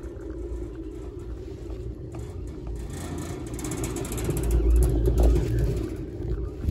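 Heron-Poma chairlift running: a steady low rumble and hum of the haul rope and sheaves, swelling louder for a second or so about four seconds in.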